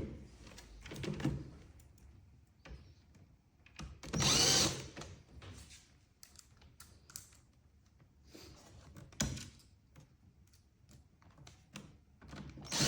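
Cordless screwdriver driving the control box's mounting screws back in, running in short bursts under a second long, with small clicks of handling between and one sharp knock.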